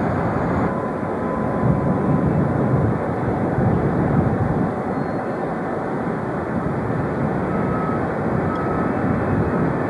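Jet engines of a twin-engine widebody airliner taxiing past, heard as a steady rushing drone that swells slightly now and then.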